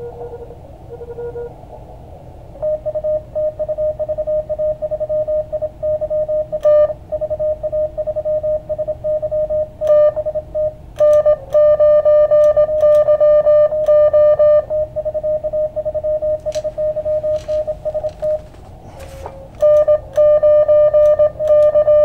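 Morse code (CW) tones from an Elecraft KX2 transceiver: one strong steady-pitched signal keyed rapidly in dots and dashes over band noise, from about three seconds in. Fainter CW signals at other pitches are heard before it starts.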